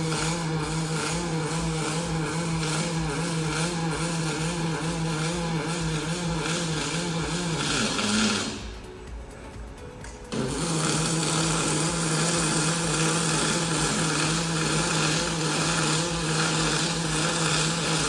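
Robotic arc welding on steel: the arc gives a steady buzzing crackle with a low hum. It stops about eight seconds in for roughly two seconds, then strikes again for a second weld run.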